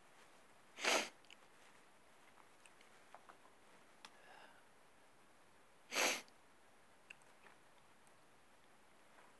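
A man's breath bursting sharply through the nose twice, each burst short and about five seconds apart, in a sneeze build-up. There is a faint catch of breath between them.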